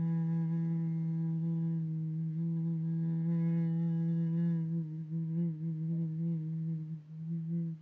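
A person's voice holding one long, low hummed note, steady at first, wavering over the last few seconds and then stopping suddenly.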